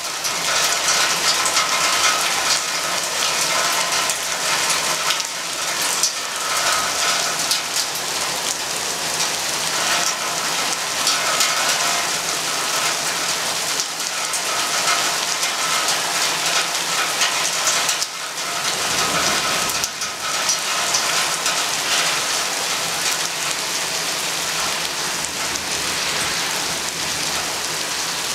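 Heavy rain falling steadily in a thunderstorm, a dense even hiss of drops on surfaces.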